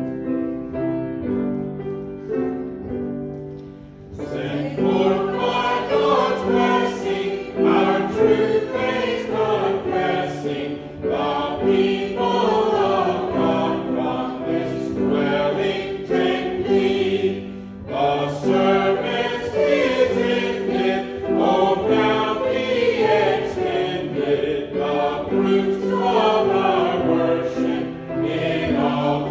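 Choir singing with keyboard accompaniment. The accompaniment plays held chords alone at first, and the voices come in about four seconds in.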